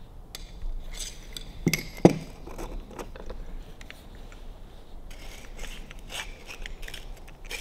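Metal parts of a Harley WLA seat post assembly handled and fitted together by hand, with the locking collar going on: small clicks, with two sharper knocks about two seconds in, then metal rubbing and scraping.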